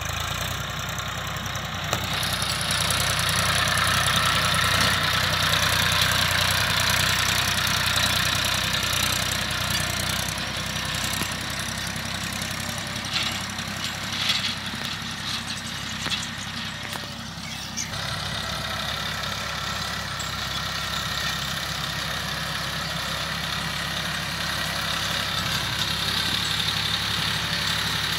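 Massey Ferguson 1035 DI tractor's three-cylinder diesel engine running steadily under load while it pulls a tillage implement through dry soil.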